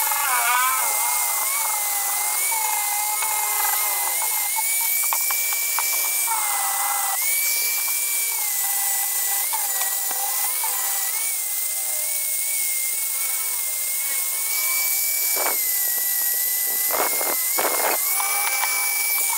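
Electric angle grinder with a sanding disc running against a brass boat propeller blade: a steady high whine that shifts slightly in pitch now and then, over the hiss of abrasive on metal. A few short rasps come near the end.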